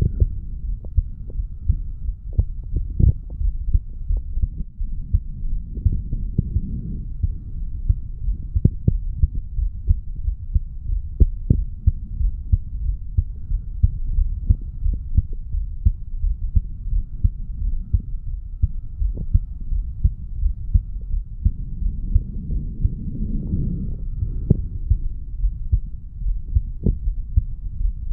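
Human heartbeat heard through the chest over the mitral valve area after weight training: a steady run of regular, dull low thumps. Twice a longer swell of rushing noise rises under the beats.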